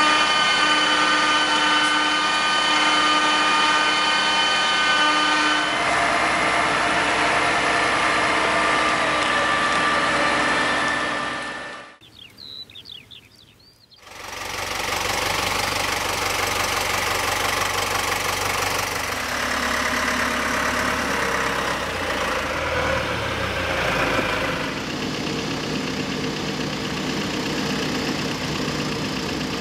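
Farm machinery running: a cabbage harvester's engine and conveyor with a steady, many-toned hum. About twelve seconds in, the sound cuts to something much quieter with a few faint high chirps. Two seconds later a tractor engine comes in and runs steadily, with a low rumble.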